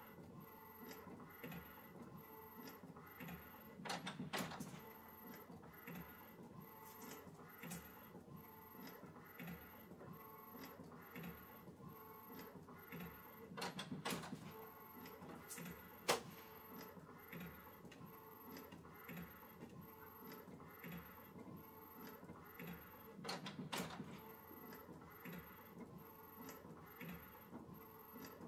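Epson ET-8550 EcoTank inkjet photo printer printing a large photo, running quietly with light ticking and a steady low whirr. A louder mechanical swell comes about every ten seconds, and there is one sharp click about 16 seconds in.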